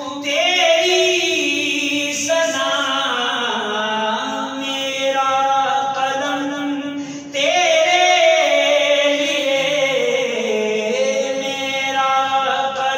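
A man singing a hamd, an Urdu devotional song praising God, in long held notes that glide up and down; a new, louder phrase begins about seven seconds in.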